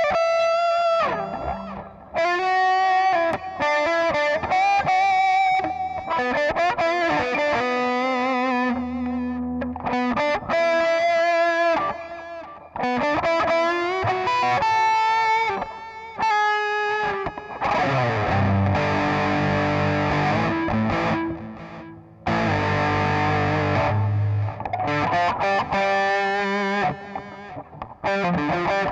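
Electric guitar played through a Digitech RP55 multi-effects processor on an overdriven crunch patch: sustained single-note melody lines with vibrato, then distorted strummed chords for several seconds a little past the middle, then single notes again.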